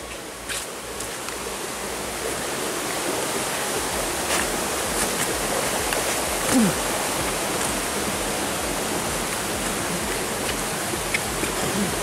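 Steady rushing hiss of flowing stream water, with a few faint clicks.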